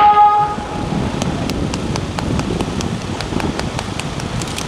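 The fireworks show's accompanying music ends about half a second in. It leaves a steady, noisy outdoor background with scattered sharp pops.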